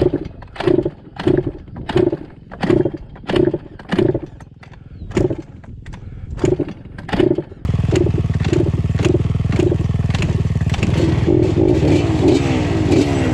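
Yamaha Banshee's 350cc twin two-stroke engine coughing in about ten short bursts, roughly 0.7 seconds apart, then catching about eight seconds in and running steadily. The sputtering fits fuel starvation, which the rider puts down to the fuel tap not being on reserve.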